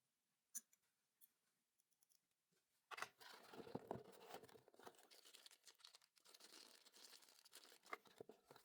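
Faint rustling and crinkling of packaging being handled during an unboxing, with small clicks. It starts about three seconds in, after a single light click.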